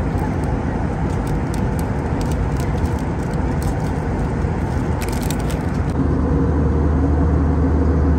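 Steady cabin noise of a jet airliner in flight, with a few crinkles of a plastic snack packet being handled. About six seconds in the low hum gets louder.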